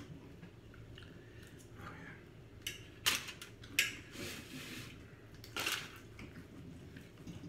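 Metal knife and fork clinking and scraping on dinner plates while a T-bone steak is cut, with a few sharp clinks about three to four seconds in and another scrape near six seconds.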